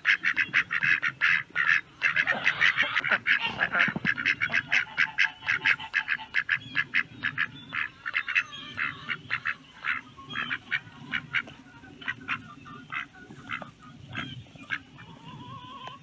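Domestic geese honking in a fast, repeated run of short calls, loud at first and thinning out to scattered honks toward the end.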